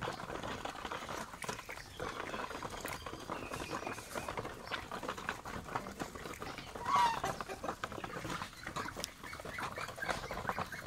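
Ducks, chickens and a white domestic goose pecking and dabbling at wet feed in a shallow basin: a rapid, continuous clatter of bills. A short bird call rises above it about seven seconds in.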